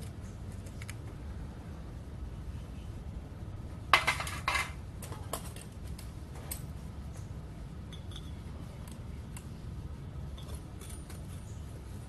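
Steel tongs and tools clinking and scraping against the crucible and the furnace's steel rim, with a loud cluster of clanks about four seconds in and lighter scattered clinks afterwards, over a steady low rumble.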